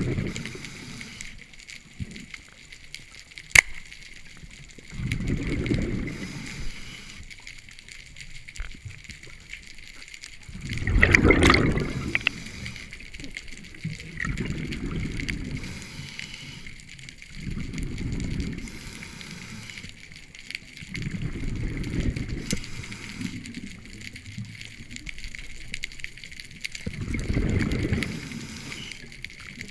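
Scuba regulator exhaust bubbling underwater with each exhale, a burst of bubbles every four to six seconds, the strongest about eleven seconds in, over a faint steady hiss. One sharp click comes between the breaths about three and a half seconds in.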